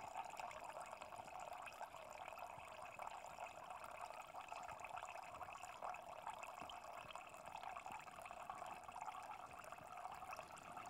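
Faint, steady trickle of acidified leach draining in a thin stream from a glass separatory funnel's stopcock into the liquid collecting in a glass beaker below.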